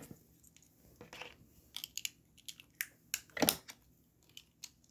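Plastic Lego pieces clicking against each other and snapping together during building: a scatter of sharp, irregular clicks, the loudest about three and a half seconds in.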